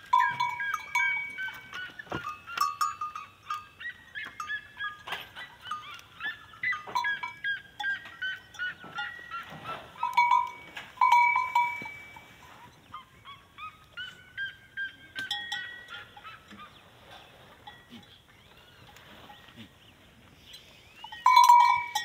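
A herd of goats crowding out of a pen: bells on the goats clank and ring over and over, mixed with goats bleating and hooves scuffling. The sound thins out for a few seconds near the end.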